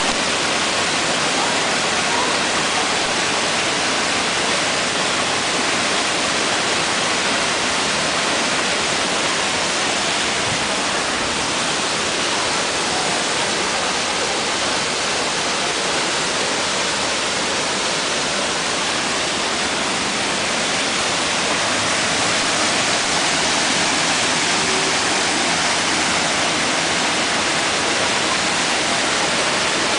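Steady rushing of muddy storm runoff pouring down a hillside in a small cascade of floodwater.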